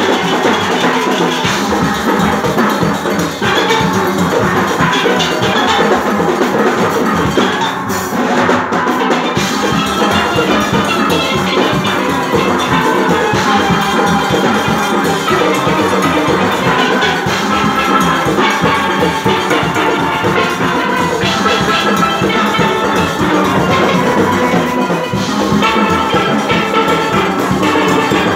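A steel band of many steelpans playing together, with drums and percussion keeping a steady beat under the melody. The music is loud and dense.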